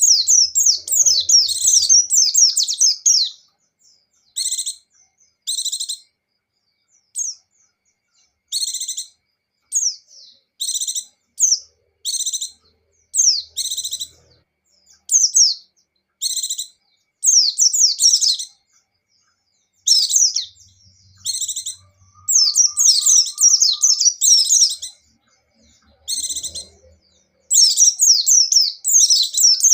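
White-eye (pleci) songbird singing: bursts of rapid, high chirping notes, most lasting under a second and separated by short pauses, with a few longer runs of about two seconds.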